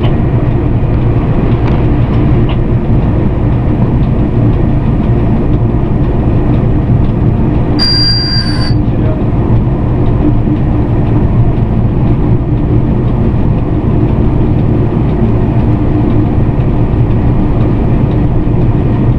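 Steady running noise inside the cab of a VL11M electric locomotive underway: a continuous rumble with a steady hum. About eight seconds in, a short high-pitched beep sounds once.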